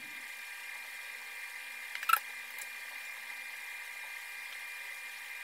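Steady high-pitched whine with faint hiss, with one short click about two seconds in.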